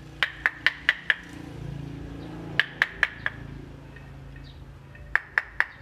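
A heavy metal blade chopping into a red-bud ficus trunk to carve it. The strikes come in three quick bursts of four, about four a second, each with a short metallic ring.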